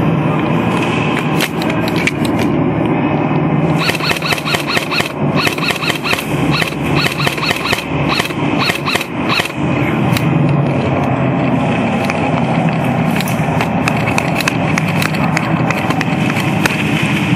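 Airsoft guns firing: a string of sharp snaps, thickest between about four and nine seconds in, over a steady loud rushing noise.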